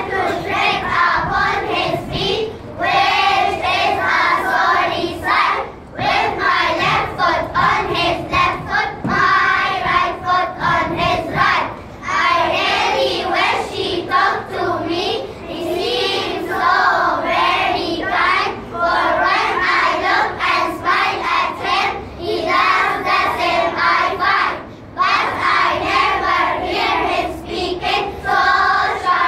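A group of young children singing together, phrase after phrase, with brief breaks between lines.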